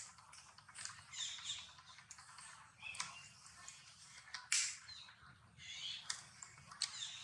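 Scattered short, high-pitched animal chirps and squeaks over a faint background, with a few sharp clicks, the loudest about four and a half seconds in.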